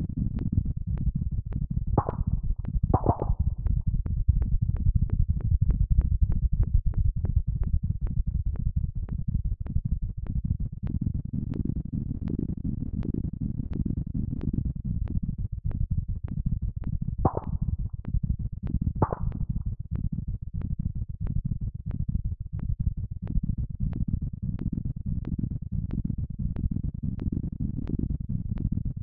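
Synthesized sonification of earthquake data: a dense low rumble under a fast, even pulse of clicks, with four brief higher tones at about two, three, seventeen and nineteen seconds in. The data are mapped to sound so that more quakes per day give a faster tempo, a greater average depth sets the pitch, and the magnitude sets the loudness.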